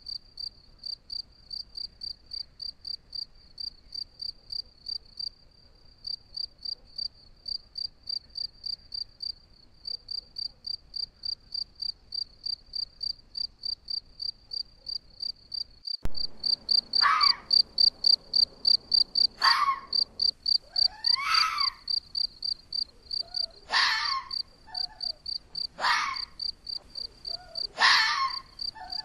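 A cricket chirps steadily in a fast, even rhythm. About halfway in, a red fox starts barking: single sharp barks about every two seconds, louder than the cricket.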